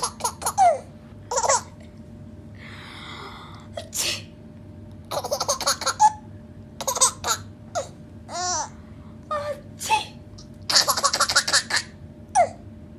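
A young child laughing in repeated short bursts and squeals, with a longer run of laughter near the end. A breathy noise lasting about a second comes about three seconds in.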